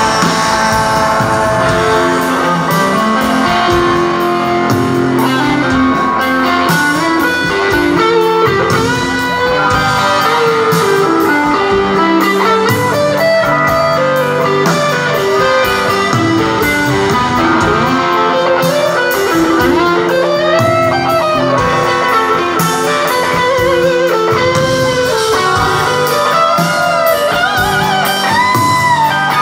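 Rock band playing live: electric guitars, bass and drums in an instrumental passage, with a lead guitar line of bent, sliding notes over the rhythm.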